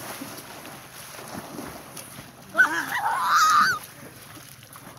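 A boy's loud, wavering shout lasting about a second, starting a little past halfway, over light splashing of swimmers in the water.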